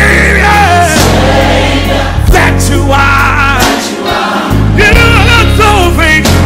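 Gospel worship song: a choir sings held, bending notes over a band with a steady bass line.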